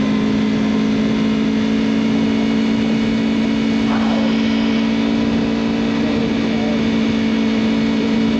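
2021 Aprilia Tuono Factory motorcycle engine running at steady revs while riding, with wind rush over the bike-mounted camera's built-in mic.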